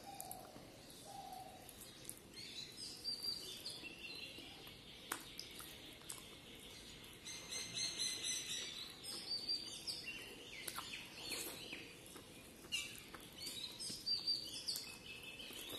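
Close-up eating sounds: chewing with wet lip smacks and clicks, and fingers squishing rice and mutton curry on a steel plate. Short high squeaky sounds come in clusters, loudest around the middle and near the end.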